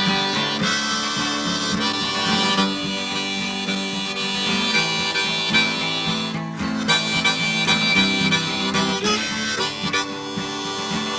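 Harmonica playing a solo over strummed acoustic guitar, in the instrumental break of a folk song.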